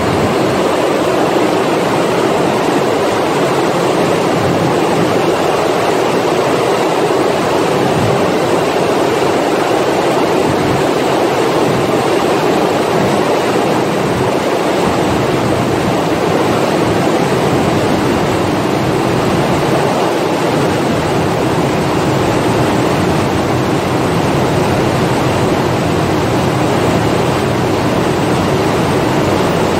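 Rows of cam and dobby water jet looms running together in a large weaving shed: a loud, steady, dense mechanical din in which no single beat stands out.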